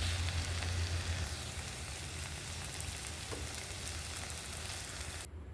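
Bhindi masala (okra in spiced masala) frying and sizzling in a pan with fine crackles; the sizzle cuts off suddenly near the end.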